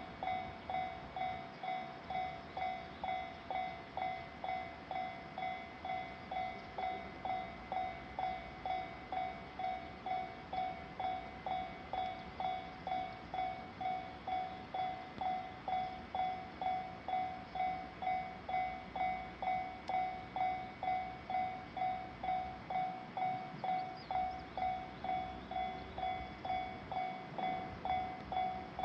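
Japanese railway level-crossing alarm ringing steadily, one pitched tone struck evenly about twice a second.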